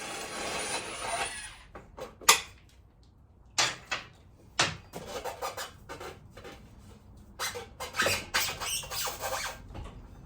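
Hand tools working bolts loose on a motorcycle frame: a scraping, rustling noise at first, then scattered metal clicks and knocks with quick runs of clicks, like a socket wrench ratcheting.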